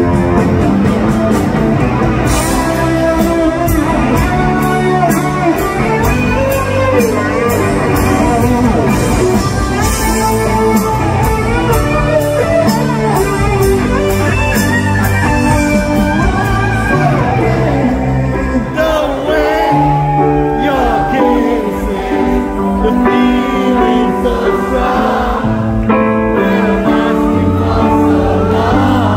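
Live soft-rock band playing a song: electric guitar, keyboards, bass and drums, with a man singing the lead.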